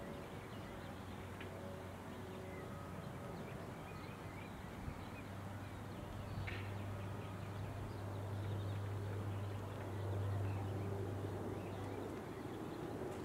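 Open-air ambience: small birds chirping over a steady low rumble that gets louder about halfway through.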